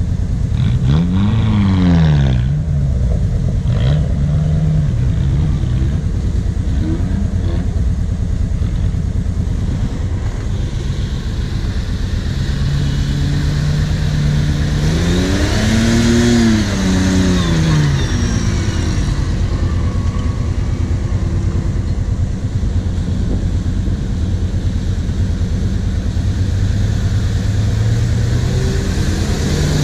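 Off-road 4x4 engines running over a steady idle, with one engine revving up and back down about a second in and again around the middle, plus a few smaller blips of throttle.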